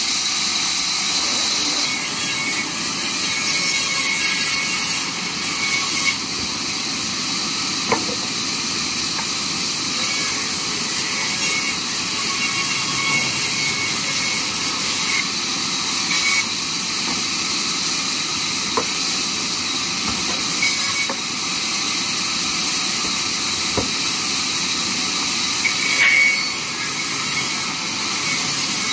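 Large vertical band saw running and ripping wooden planks into pallet-sized pieces as they are fed through the blade, a steady high hiss of the blade cutting the wood. A few sharp knocks stand out along the way.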